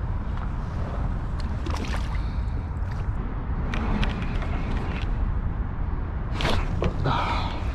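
Water sloshing and gurgling against a kayak hull over a steady low rumble, with a few light knocks scattered through.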